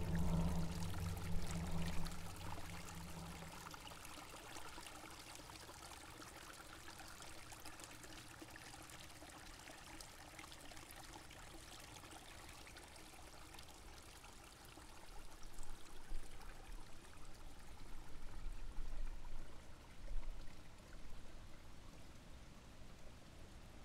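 A low drone fading out over the first few seconds, then a soft, steady wash of noise like gently running water, with uneven low swells from about fifteen seconds in.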